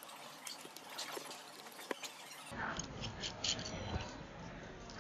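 Faint scattered clicks and light taps of small tools and parts during lens disassembly, with a low room rumble after an edit about halfway through.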